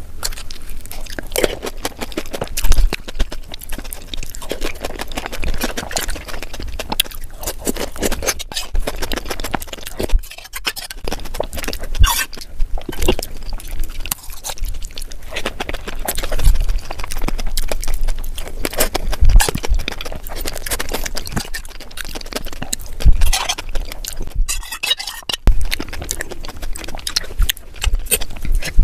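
Close-miked eating of pani puri: crisp puri shells crunching and crackling between the teeth, with wet chewing in between.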